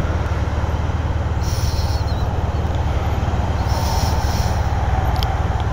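Motorcycle engine idling at a standstill, a steady low rumble, with two short hisses about a second and a half and four seconds in.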